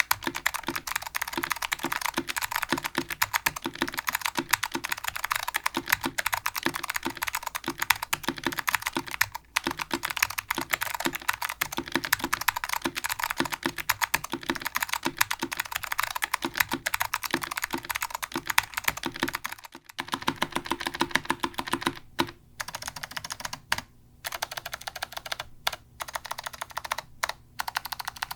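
Clicky Alps SKCM Blue switches typed on quickly in a Gemini TKL keyboard with a Delrin (POM) plate, wearing thin double-shot ABS Focus FK2001 keycaps. About two-thirds through, the typing turns to separate presses of the modifier keys, now with thick dye-sublimated PBT Dell AT101 keycaps, with short gaps between strokes.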